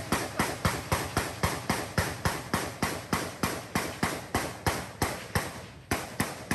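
A steady, evenly spaced run of sharp clicks, about four a second, each with a short ringing tail.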